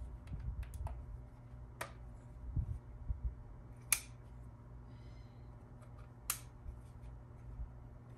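Plastic clicks of a borescope's detachable screen being fitted and locked onto its handle by a locking tab. Three sharp clicks come about two, four and six seconds in, among fainter ticks and handling noise.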